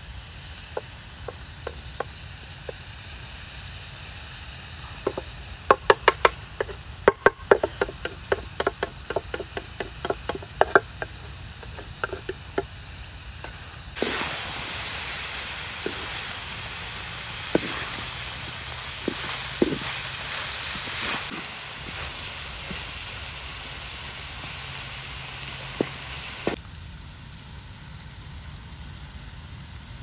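Chopped mushrooms and vegetables frying in a black metal wok, stirred with a flat wooden spatula. A run of quick wooden taps and knocks in the first half, then a louder steady sizzle from about halfway that drops off shortly before the end.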